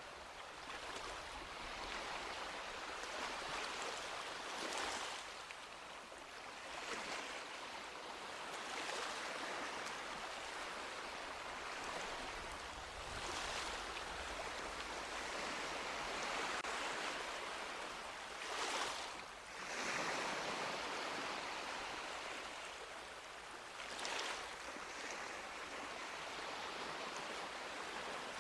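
Small sea waves lapping and washing on a beach, a continuous wash with a brighter splash every few seconds as a wave breaks.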